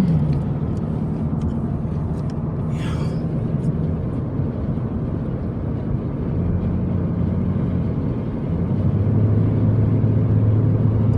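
Car engine and road noise heard from inside the cabin while driving: a steady hum that drops to a lower, slightly louder drone about nine seconds in.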